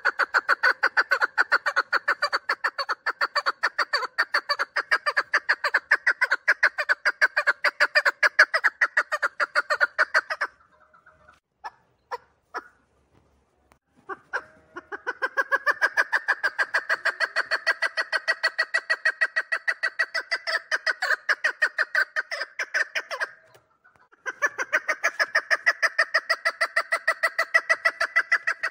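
A three-year-old female chukar partridge calling: a fast, unbroken run of clucking notes. It stops for about four seconds in the middle, leaving only a few faint clicks, then resumes and pauses again briefly near the end.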